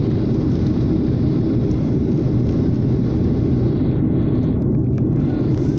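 Jet airliner cabin noise in flight: the engines and the airflow make an even, steady drone, strongest in the low range.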